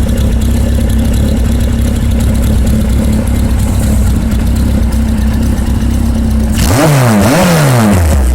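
Engine breathing through a Kintaro straight-pipe muffler, idling steadily with a deep exhaust note, then blipped twice in quick succession near the end and dropping back toward idle.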